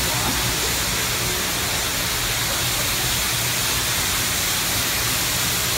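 Car wash high-pressure wand spraying water onto an artificial Christmas tree: a steady hiss of spray and mist, over a low steady hum.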